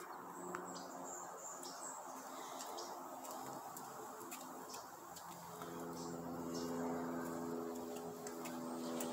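Outdoor background with small birds giving short high chirps scattered throughout. A little past halfway, a steady low droning hum comes in and holds.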